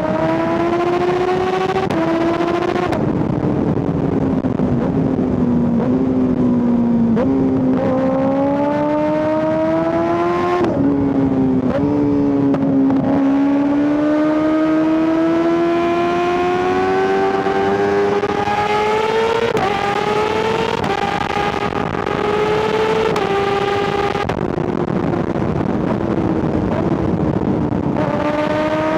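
2025 Kawasaki ZX-6R's 636 cc inline-four engine being ridden hard, its pitch climbing steadily in each gear and dropping sharply at several gear changes.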